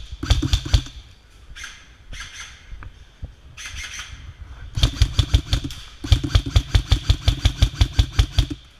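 Airsoft gun firing on full auto in rapid bursts of about ten shots a second: a short burst at the start, then after a pause of a few seconds two longer bursts back to back.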